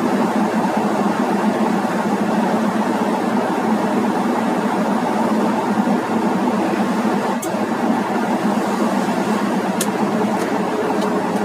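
Steady engine and road noise inside the cab of a moving ambulance, with a couple of sharp clicks in the second half.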